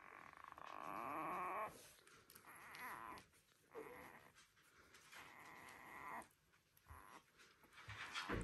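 One-week-old Border Collie puppies whining: a string of four or five drawn-out high whines with short gaps between them, the first and one about five seconds in the longest.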